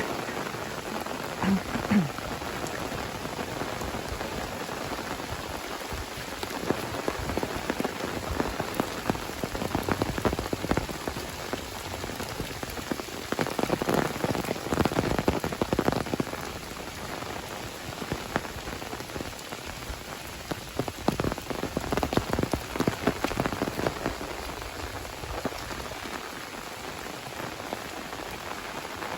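Steady rain falling, with many individual drops and drips striking surfaces close by; it gets heavier for a few seconds around the middle.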